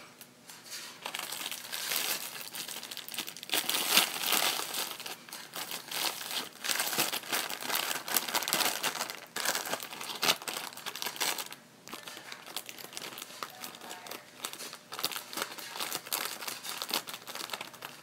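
Paper bag crinkling and rustling as cotton stuffing is pushed into it by hand, an uneven run of crackles with a brief lull about two-thirds of the way through.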